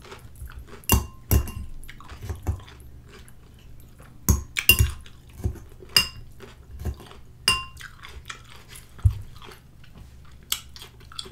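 A metal spoon clinking against a glass bowl as food is scooped, about a dozen irregular clinks, several with a brief ringing tone, with soft chewing between them.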